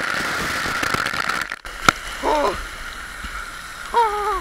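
Heavy spray from a lake fountain hissing as it rains down on the water and the camera, cutting off sharply about a second and a half in. After it come a click and two short high calls.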